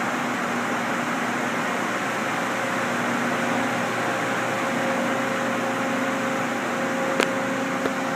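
A steady, even mechanical hum like a running fan, with a faint steady tone under it and one sharp click about seven seconds in.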